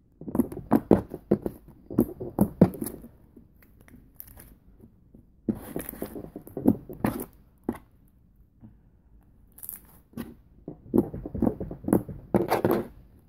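Freshly made pink slime, activated with baking soda and contact solution, being kneaded and stretched by hand: sticky squelching and crackling in four spells with short pauses between.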